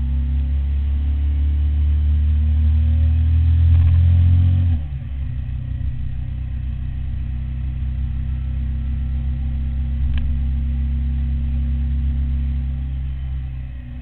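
Suzuki SV1000's 90-degree V-twin engine pulling under acceleration with its note climbing, then dropping sharply about five seconds in as the rider shifts up a gear. It then runs steadily at a lower pitch, and the note falls near the end as the throttle is eased off.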